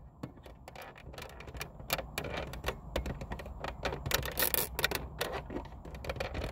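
Flat-blade screwdriver prying at the plastic lens of a Dodge Challenger's overhead map/dome light: an irregular run of small clicks and taps of metal on plastic, several a second, over a low rumble.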